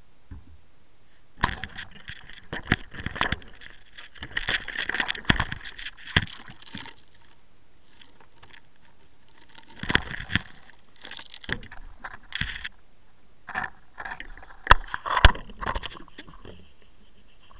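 Irregular knocks, scrapes and rattles right against the camera, in three bursts with quiet gaps between them.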